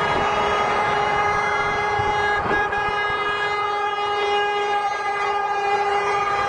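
Vehicle horns sounding in long, steady held blasts as a procession of vehicles rolls past, with the lowest tone stopping near the end.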